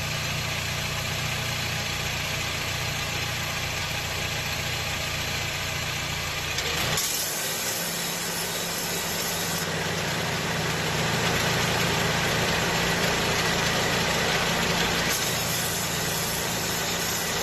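Honda Jazz 1.5 four-cylinder engine idling under the hood, with the running noise of a worn, failing A/C compressor clutch. About seven seconds in the sound changes: the low hum drops away and a louder, rushing hiss takes over.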